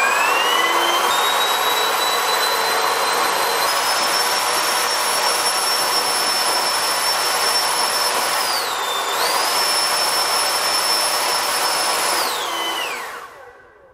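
JetFan electric ducted fan on an 8S LiPo setup, blowing through 3D-printed Harrier ducting and nozzles on a thrust stand in a static thrust test. Its high whine steps up in pitch twice in the first few seconds, holds steady, dips briefly about nine seconds in and comes back, then spools down and fades out near the end.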